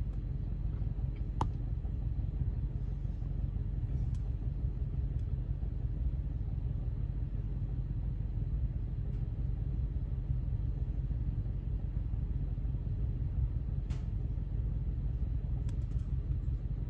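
Steady low rumble with a few faint, scattered clicks.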